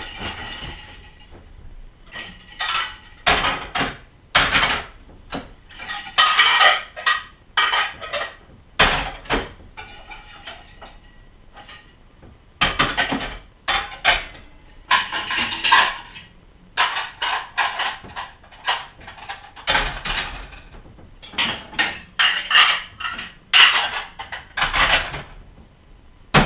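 Dishes, pots and cutlery clattering and clinking as they are washed and handled at a kitchen sink, in irregular bursts with short pauses between, along with the knock of a wall cupboard as dishes are put away.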